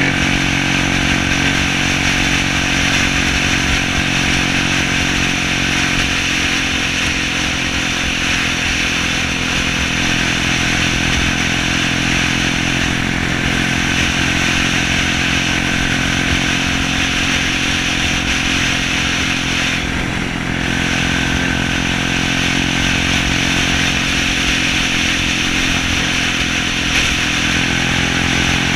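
Honda engine in a BSA Bantam motorcycle running steadily at cruising speed on the move, under a steady rush of wind and road noise, with a brief dip in level about two-thirds of the way through.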